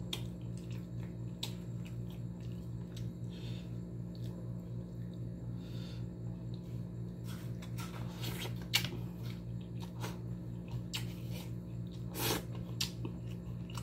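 Eating by hand: fingers picking at fish and rice on a plate, with scattered soft clicks and mouth sounds of chewing, over a steady low hum.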